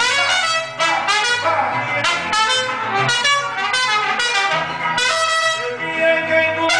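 Mariachi band playing live: a trumpet carries the melody over strummed guitars, with a low bass line stepping from note to note.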